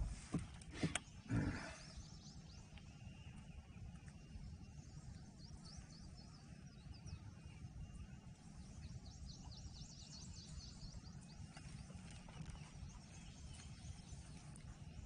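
A few knocks in the first two seconds as the fishing rod and kayak are handled. Then a low steady rumble, with faint rapid high chirping near the middle.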